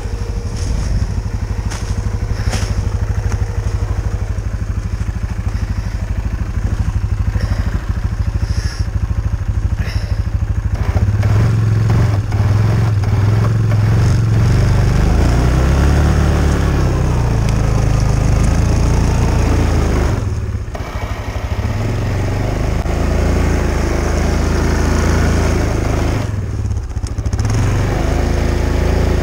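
Yamaha Kodiak 450 ATV's single-cylinder engine running steadily, then revving up and down from about eleven seconds in as the quad drives through deep snow. The engine sound briefly dips twice near the end.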